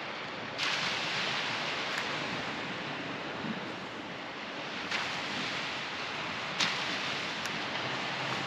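Steady hiss of wind and surf, growing a little louder about half a second in, with a few faint clicks.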